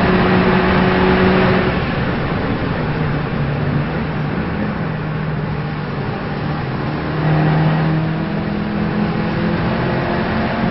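A car engine running at changing revs over steady road and tyre noise, its note climbing slowly in the last few seconds as the car accelerates.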